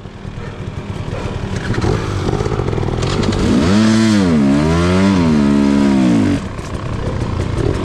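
Two-stroke dirt bike engine running and building, then revving hard for about three seconds, its pitch swinging up and down twice before it drops back to a lower running note.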